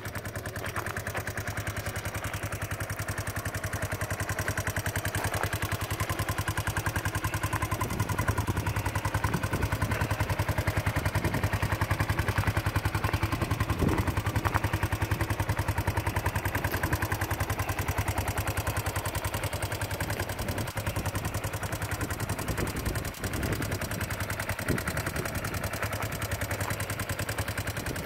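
Kawasaki Prairie ATV engine idling steadily, with an even rapid putter and a few light knocks.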